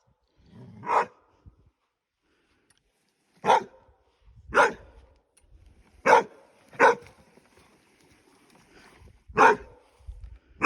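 A dog barking loudly: six single, sharp barks spaced unevenly, one to three seconds apart.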